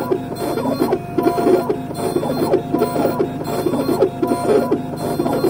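Dental milling machine's burs grinding a porcelain block under a water coolant spray, carving the piece that will repair a broken tooth. A steady whine runs over an uneven, busy grinding.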